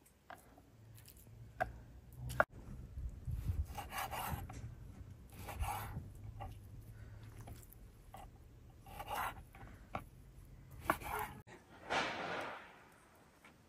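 Chef's knife cutting raw chicken on a wooden cutting board: soft knocks of the blade on the wood and scraping as the meat is slid across the board. A short rush of noise comes near the end.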